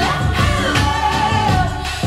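R&B/pop song with a sung lead vocal over a steady drum and bass beat, played back through JBL 4329P active studio monitor speakers.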